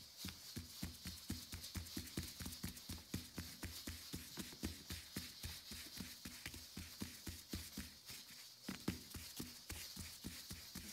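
Gloved hands patting and pressing a round of dough flat on a floured plastic mat: quick, even soft thumps, about four or five a second, with a short break about eight seconds in.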